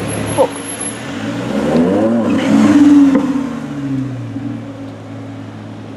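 Audi R8 V10 Plus's V10 engine through an Akrapovic exhaust, accelerating past with its note rising to a loud peak about three seconds in, then dropping and fading as the car drives away.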